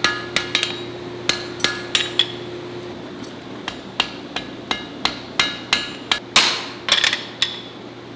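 Hand hammer striking hot steel on an anvil, two to three ringing blows a second, with a short pause about three seconds in and a flurry of blows near the end.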